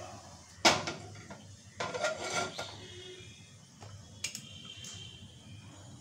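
Metal frying pan clattering as it is handled and set down on a gas stove's pan support. There is a sharp knock about half a second in, a short burst of clatter around two seconds, and a single click a little after four seconds.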